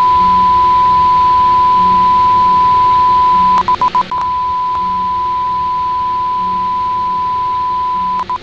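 Steady 1 kHz test tone, the reference tone that goes with television colour bars, over a hiss. It breaks into quick stuttering pulses twice, about three and a half seconds in and again near the end, then cuts off.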